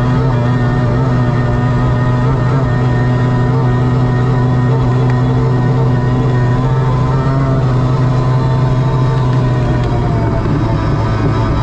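Mercury F1 race outboard, a V6 two-stroke, running at steady high revs while the boat races at speed, heard from the cockpit.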